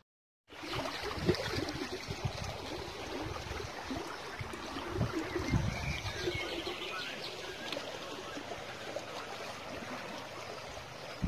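Water running steadily along a narrow concrete irrigation channel, with birds chirping faintly and occasional low thuds. The sound cuts in after about half a second of silence at the start.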